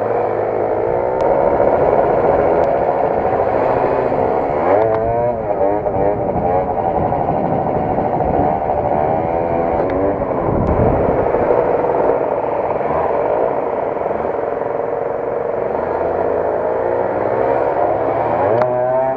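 Small scooter engine heard from the rider's seat, its pitch rising and falling as the throttle is opened and closed, over wind and road noise.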